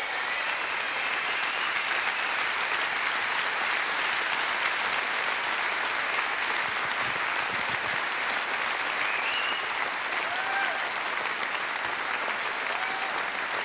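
Large theatre audience applauding steadily, with a few brief calls from the crowd standing out in the second half.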